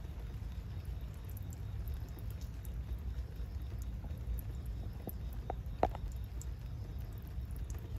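Rainwater dripping from a car's underbody onto wet asphalt: scattered light ticks and three louder drops between about five and six seconds in, over a steady low rumble.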